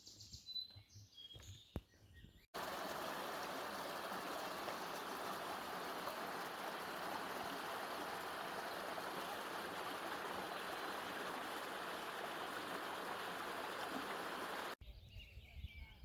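Steady rush of running water, cut in abruptly about two and a half seconds in and cut off just as abruptly near the end. Before it come faint bird chirps.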